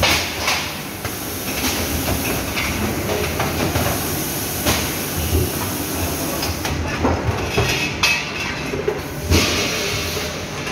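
Three-phase DC butt welding machine at work: a steady low hum and hiss, broken by a few sharp knocks, the loudest a little over nine seconds in.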